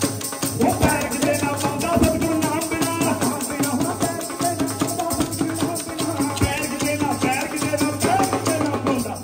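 Punjabi folk music for Malwai giddha: rapid, even rattling percussion with a drum beat, and voices singing over it from about a second in.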